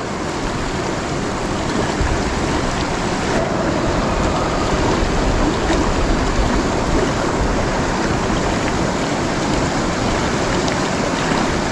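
Shallow rocky river flowing over stones and riffles: a steady rush of water.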